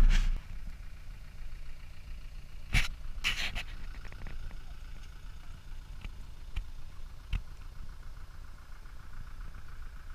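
A vehicle engine idling faintly and steadily, with a sharp click about three seconds in, a short run of clicks just after it, and two lighter clicks later on.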